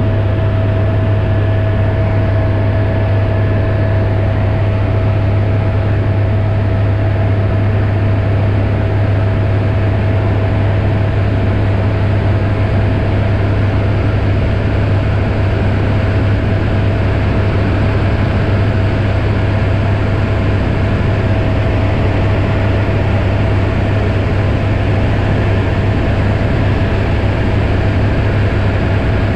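Helicopter in flight heard inside the cabin: the engine and rotor run steadily, a loud low drone with a constant whine above it.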